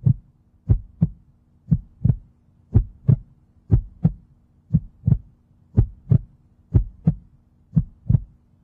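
Heartbeat sound effect: paired low thumps, lub-dub, repeating about once a second over a faint steady hum.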